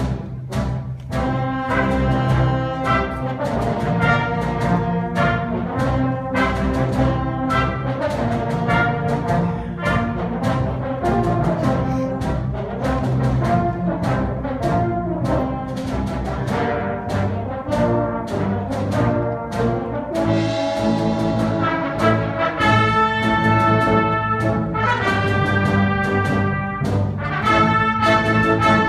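Brass ensemble playing a triumphal march: trumpets, trombones and horns in held chords over a steady percussive beat, the high brass coming in brighter about two-thirds of the way through.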